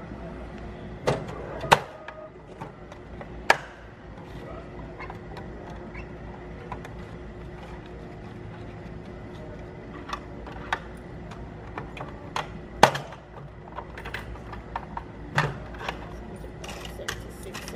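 Scattered sharp clicks and knocks, a few much louder than the rest, over a steady low hum with a faint high whine.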